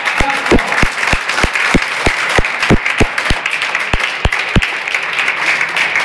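Audience applauding. A loud, even beat of nearby claps or thumps, about three a second, runs over it and stops about four and a half seconds in.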